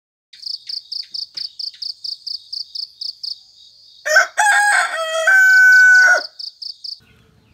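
A rooster crowing once, a single long crow of about two seconds starting a little past the middle, over a cricket chirping in an even, fast pulse of about four to five chirps a second.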